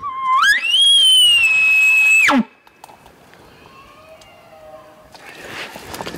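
Elk bugle: a loud whistle that climbs quickly, holds high for about two seconds, then drops abruptly into a low grunt. A fainter, lower call that falls in pitch comes about four seconds in.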